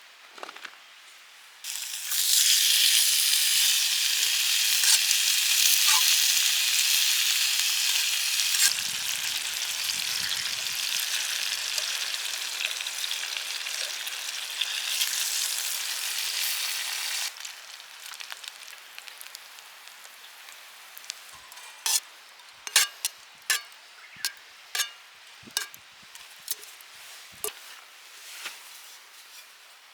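Food sizzling in a hot pan. The sizzle starts suddenly and loud about two seconds in, drops much quieter about halfway through, then goes on softly under a series of sharp clicks.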